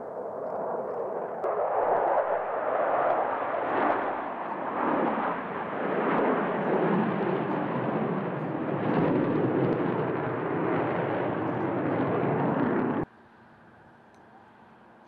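Jet engines of a diamond formation of four Sukhoi Flanker-family twin-engine fighters passing overhead: a loud, rushing rumble with slowly sweeping tones. It cuts off suddenly about two seconds before the end, leaving a faint distant rumble.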